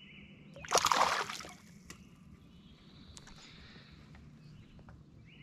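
A sunfish splashing once at the water's surface beside the canoe, about a second in, the splash dying away within about half a second.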